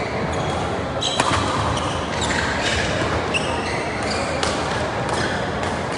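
Badminton rally in a large hall: several sharp racket strikes on the shuttlecock and short high squeaks of shoes on the court mat, over a steady background murmur of the hall.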